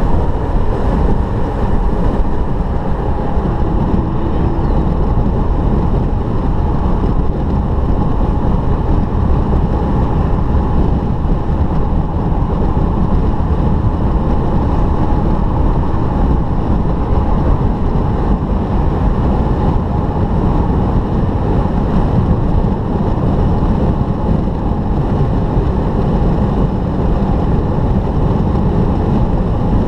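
Steady road noise inside a car cruising on a wet motorway: tyre roar and engine running evenly at speed.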